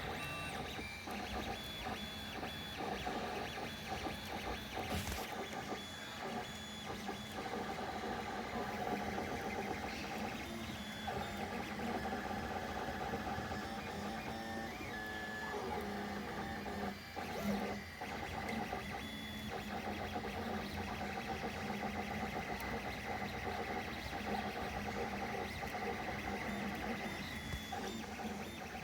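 Desktop 3D printer running a print: its stepper motors whine at pitches that keep shifting as the print head moves.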